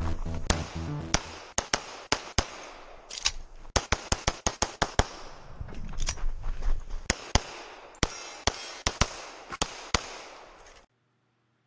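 Rapid strings of pistol shots from a Sig Sauer 1911 MAX in .40 S&W, fired in quick pairs and bursts with short breaks for movement and a reload, each shot echoing briefly.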